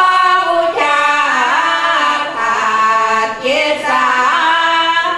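Unaccompanied female chanting of a Buddhist sarabhanya verse in the northeastern Thai (Isan) melody style: long held, wavering notes that glide in pitch, fading out near the end.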